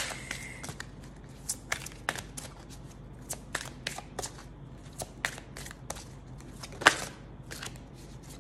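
A deck of oracle cards being shuffled by hand: a run of irregular, light card clicks and snaps, with one louder slap about seven seconds in.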